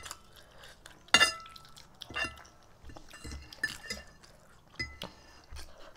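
Metal forks clinking against ceramic dinner plates while noodles are eaten: a handful of sharp, ringing clinks a second or so apart, the loudest about a second in.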